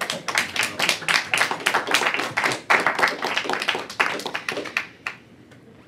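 Applause from a group of people: a dense patter of hand claps that dies away about five seconds in.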